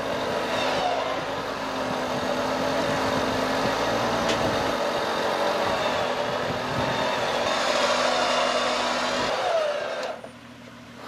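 Electric winch whirring under load as it pulls a stuck Jeep Wrangler back onto the trail, with the vehicle's engine running underneath. The noise holds steady and then stops about ten seconds in.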